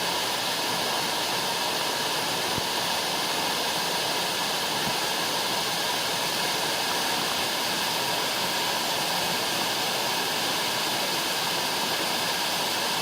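A tall waterfall rushing nearby: a steady, unbroken roar of falling water.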